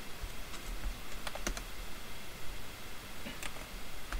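A handful of scattered, light clicks from a computer keyboard and mouse being worked at the desk.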